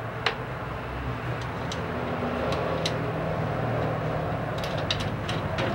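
Light metallic clicks and taps as an aluminium opener bracket is worked onto screws on a greenhouse roof-window frame, scattered through and more frequent near the end, over a steady low mechanical hum.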